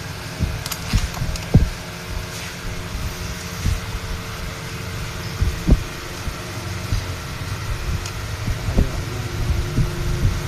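Steady low mechanical hum with scattered sharp clicks and knocks, two of them louder, about a second and a half in and just before six seconds.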